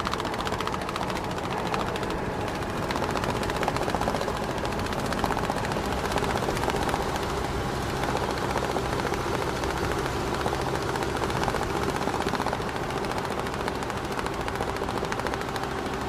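Large truck driving at a steady pace, its engine drone running under a fast, continuous flutter and rattle of cargo straps flapping in the wind.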